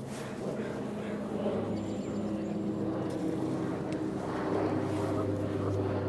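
A motor's steady, low drone growing gradually louder.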